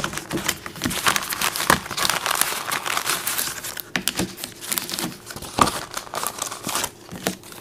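Crinkling and rustling of a GHS Boomers guitar string pack being handled: the fold-out wallet and the strings' individual sleeves. Irregular crackles run on without a pause.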